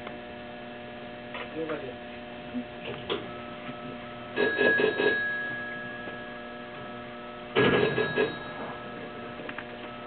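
Steady electrical hum in the cab of a stopped Sanyo 5000 series train. From a little before halfway a high beep repeats about twice a second. Two short loud bursts of radio transmission with a held tone come in at about the middle and near the end.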